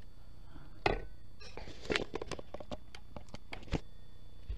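Irregular light clicks and taps of a diamond-painting pen picking resin drills from a plastic tray and pressing them onto the sticky canvas, about a dozen in all, the sharpest about a second in.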